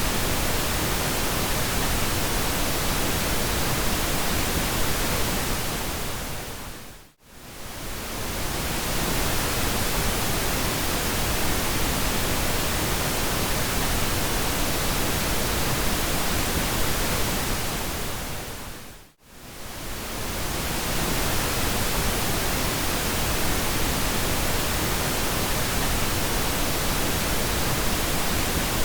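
Steady pink noise, an even hiss across all pitches. Twice, about 12 seconds apart, it fades briefly almost to silence and swells back in.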